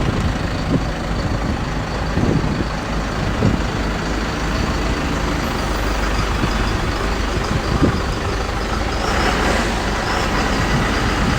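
Diesel engine of a solar pile-driving machine running steadily after being started with its key, with a few light knocks. There is a brief louder stretch of hiss about nine seconds in.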